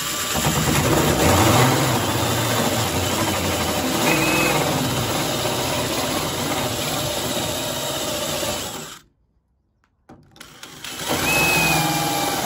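Electric drill running under load as its bit bores out a plug weld in rusty tailgate sheet steel. It stops briefly about nine seconds in, then starts again about a second later and keeps cutting.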